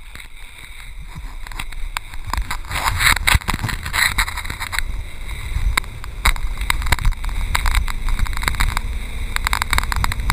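Water rushing and splashing under an O'Brien towable tube as it is pulled through a motorboat's wake, with wind rumbling on the action camera's microphone. The noise builds over the first couple of seconds as the tube picks up speed, then stays steady with irregular splashes.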